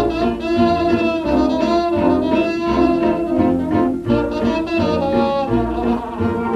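Early-1930s hot-jazz dance orchestra playing a fox trot from a 78 rpm record, with saxophones and brass carrying the tune over a steady bass beat.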